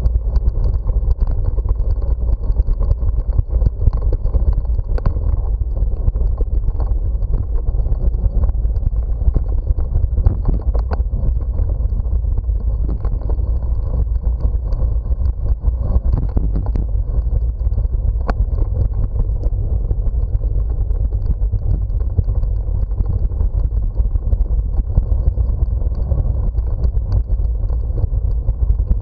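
Wind buffeting the microphone of a camera on a moving bicycle: a loud, steady low rumble. Scattered small clicks and rattles come from the bike rolling over brick paving.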